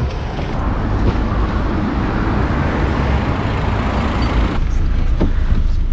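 Steady city traffic noise with a car running close by as a taxi pulls up to the curb.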